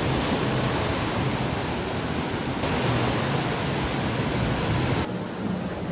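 Steady rush of ocean surf breaking below, changing abruptly about two and a half seconds in and again near the end.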